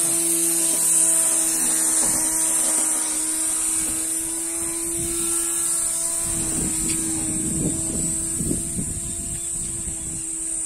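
Homemade grass-cutting machine's motor running steadily with a high, even whine. Irregular low knocks and rumbling join it about halfway through.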